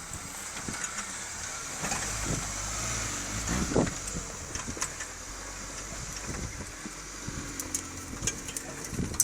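Off-road 4x4 vehicle engine running at low speed, with scattered knocks and crunches.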